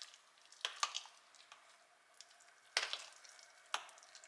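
Guacamole of avocado and quark being stirred with metal cutlery in a glass bowl: soft squishing and scraping, with a few sharp clinks of the cutlery against the glass.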